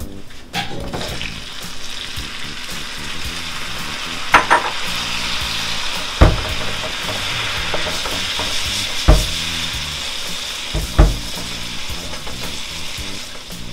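Butter-and-oil Cajun sauce sizzling and bubbling in a nonstick skillet with raw shrimp cooking in it. A wooden spoon stirs it and knocks against the pan a few times.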